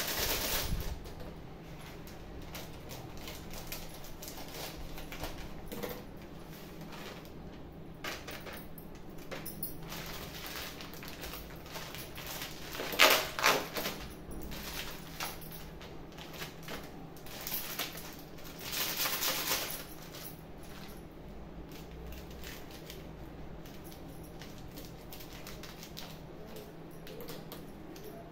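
Plastic spice packets being handled, cut open and emptied: crinkling and rustling with small clicks, loudest in two bursts about 13 and 19 seconds in.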